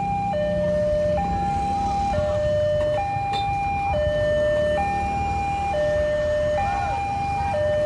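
Railway level-crossing warning alarm sounding a two-tone hi-lo signal, switching between a higher and a lower pitch just under every second, to warn that a train is approaching while the barrier is down. Motorcycle engines run underneath.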